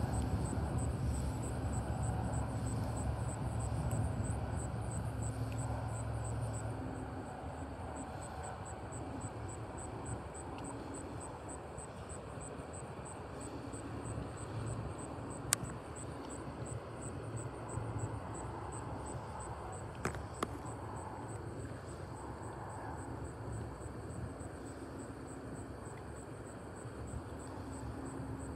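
Outdoor ambience: a low steady drone, strongest for the first several seconds and then fading, under insects chirping in a fast, even high pulse. There are two sharp clicks around the middle.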